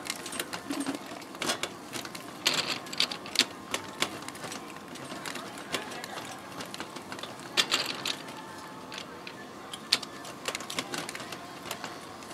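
Hand-cranked roller press for flattening dried squid, clicking and clattering irregularly as its handwheel is turned and a squid is rolled flat between the rollers.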